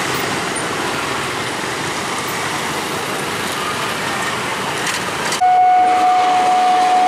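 Motorcycle and street traffic noise at a railway level crossing. About five seconds in, a loud, steady warning tone starts abruptly and holds without a break.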